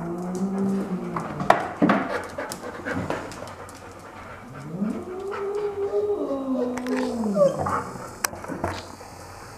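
An animal's long, low, wavering moans: one tails off about a second in, and a second, about three seconds long, rises and then falls in pitch near the middle. A few sharp knocks and clicks come between them.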